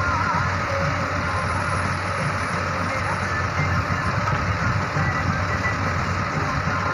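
Diesel engine of an Ace AX130 backhoe loader running steadily.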